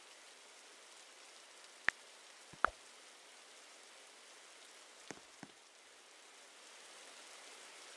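Faint steady hiss with four sharp ticks: two about two to two and a half seconds in, and two more a little after five seconds. The hiss grows slightly louder near the end.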